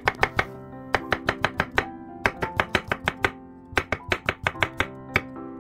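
Kitchen knife slicing a cucumber on a wooden cutting board: quick strikes of the blade on the board, coming in several short runs with brief pauses between them.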